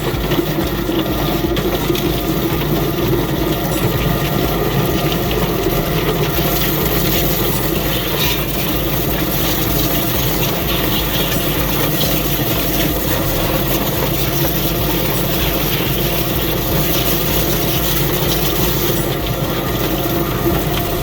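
Chicken plucker running steadily: its motor hums while the drum spins the scalded chicken fast and water is sprayed in, a continuous whirring, splashing noise.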